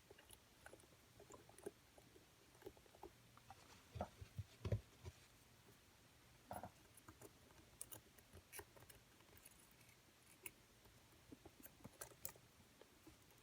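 Faint, scattered clicks and scrapes of a wire pick and tensioner being worked into the keyhole of a small lever lock, with a few louder knocks about four to five seconds in.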